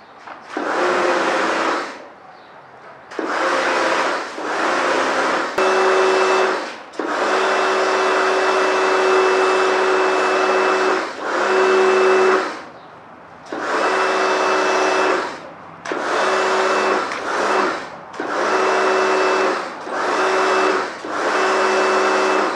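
Kärcher K2 electric pressure washer spraying water in about seven bursts, its motor hum and the spray hiss starting and stopping each time the trigger is squeezed and released. The longest burst runs about seven seconds near the middle.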